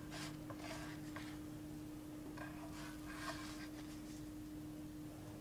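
Silicone spatula scraping and sliding under pancakes in a nonstick frying pan, a few soft scrapes, over a faint steady hum.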